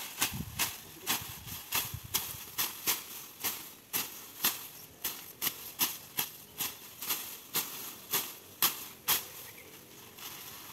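Grass and weeds being torn out and cleared by hand, a crisp rustling and snapping about twice a second in a steady rhythm.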